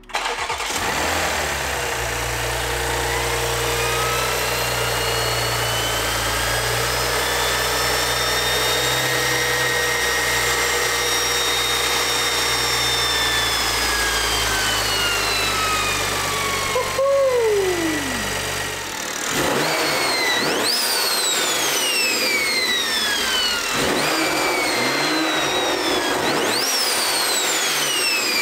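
BMW B58 turbocharged inline-six with a big single turbo starting on its first start and idling without a cold-start high idle. A high-pitched turbo whistle slowly rises and then falls away over about fifteen seconds. Near the end, three high whistles each jump up sharply in pitch and slowly fade.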